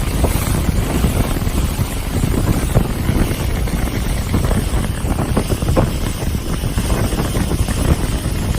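Heavy wind buffeting the microphone aboard a moving boat, over the boat's steady running noise and water.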